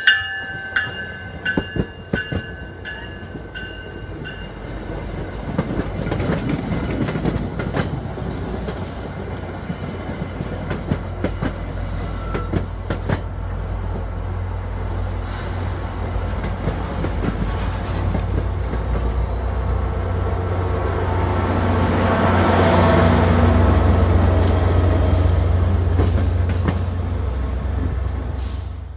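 Bilevel commuter train rolling past the platform, its wheels clicking over rail joints above a steady low rumble that grows to its loudest a few seconds before the end, as the rear of the train goes by. A ringing bell fades out in the first few seconds.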